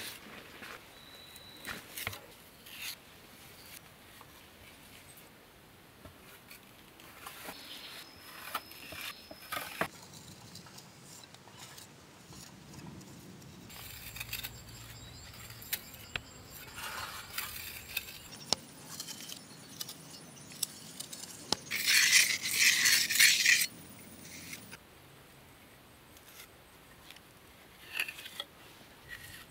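Small hand trowel spreading and scraping wet mud plaster on a mud wall: scattered light clicks and scrapes, with a louder stretch of scraping lasting about a second and a half a little past two-thirds of the way in.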